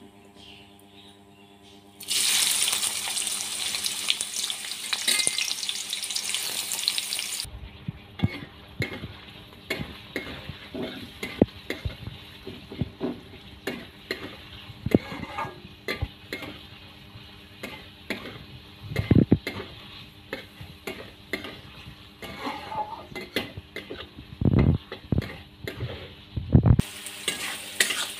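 Sliced onions sizzling hard in hot oil in a metal kadai, starting suddenly about two seconds in. The sizzle then settles while a metal spatula stirs them, scraping and clicking against the pan, with a few louder knocks. The sizzle rises loud again near the end.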